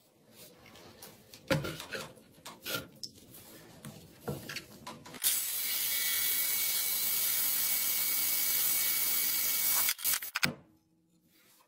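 Handling clicks and knocks as a core bit is fitted to a Hilti cordless drill. Then, about five seconds in, the drill runs steadily for about five seconds, its core bit grinding through a ceramic tile with a steady high whine. It stops with a few clicks.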